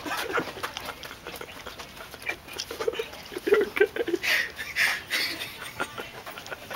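Short wordless human vocal noises, stifled laughs and grunts, over scuffling and rustling from people moving about.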